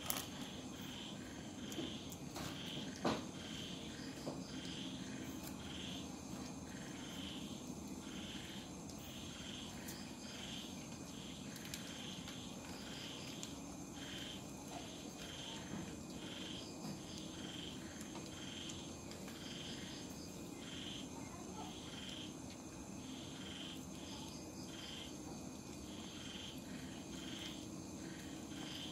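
A cricket chirping steadily, short high chirps a little more than once a second, with a few sharp clicks in the first three seconds.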